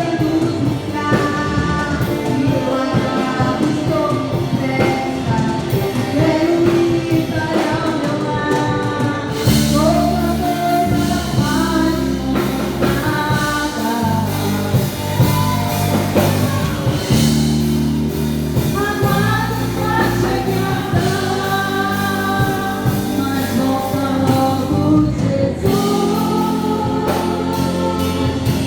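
Live gospel worship music: voices singing a praise song over a band, with the bass coming in strongly about ten seconds in.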